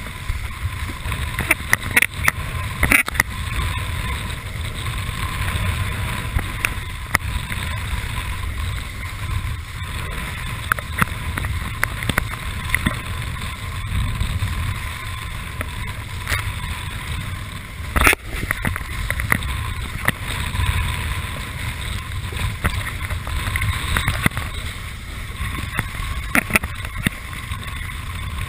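Wind buffeting the microphone in a steady low rumble, over the rushing hiss of water and spray under a kiteboard planing across choppy water. A few sharp knocks cut through, the strongest about eighteen seconds in.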